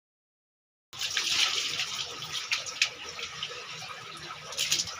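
Silence, then about a second in, rainwater starts pouring and splashing steadily, with a few sharper splashes.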